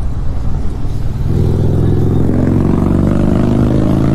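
Motorcycle engine running close by. Its note comes in strongly about a second in and holds fairly steady for about three seconds, over low wind rumble on the microphone of a moving bicycle.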